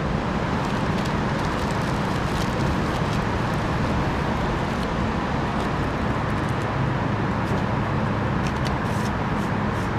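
Steady low outdoor rumble, with faint crinkles of a plastic zip-top bag being handled.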